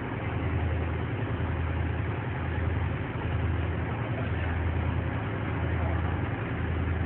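Fishing boat's engine running steadily under way: a low drone that swells and eases about once a second, over a steady rush of wind and water.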